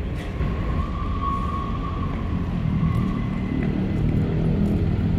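Outdoor urban ambience: a steady low rumble with a thin, steady high whine over it, the whine strongest about a second in.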